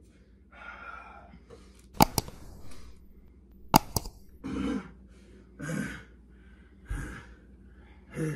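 Worn-out wrestlers' heavy breaths and groans, a short one every second or so in the second half, with two pairs of sharp slaps or knocks around two and four seconds in.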